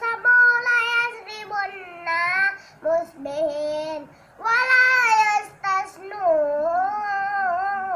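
A young boy's voice chanting Quranic recitation from memory, in melodic phrases with short breaks between them.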